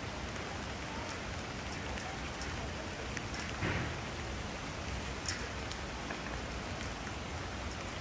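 Steady rain falling through a forest, pattering on leaves and ground as an even hiss, with a few louder single drops landing, the biggest about halfway through.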